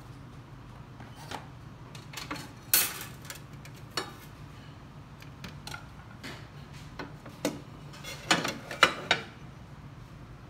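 Scattered clicks and knocks of an espresso machine's drip tray and its cover being pulled out and handled, with a quick run of louder knocks near the end. A low steady hum sits underneath.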